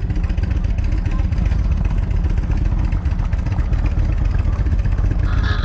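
Motorcycle engine running steadily under a heavy, even low rumble, with a brief higher sound near the end.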